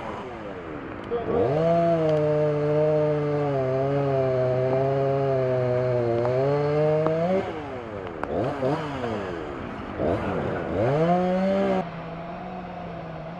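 Chainsaw revved up and held at full throttle for about six seconds, the note sagging a little under load as it cuts through a downed tree. It is then let off, blipped twice, and settles to idle near the end.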